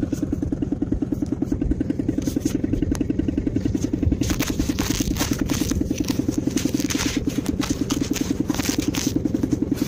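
Small two-stroke engine idling with a steady, even putter.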